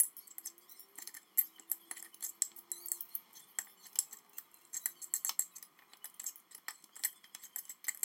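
A metal fork clicking and scraping against a ceramic plate in quick, irregular strokes while shredding slow-cooked meat off the bone.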